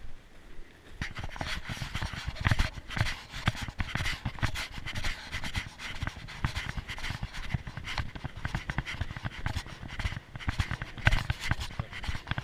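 A dog panting rapidly and steadily, starting about a second in.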